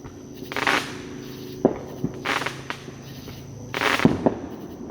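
Consumer fireworks going off in the surrounding neighbourhood: a string of sharp bangs and crackling bursts, several in a few seconds, the loudest cluster near the end.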